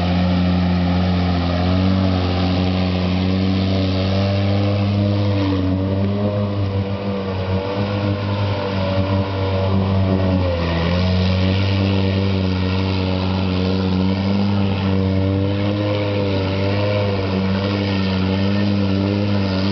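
Quad (ATV) engine running hard at steady high revs, held on the throttle as the machine churns through a deep mud hole, with a brief dip in revs about ten seconds in.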